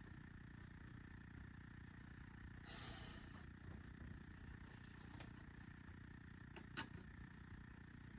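Near silence: the steady low hum of the room with a faint high whine. One brief soft swish comes about three seconds in, and a single sharp click near seven seconds.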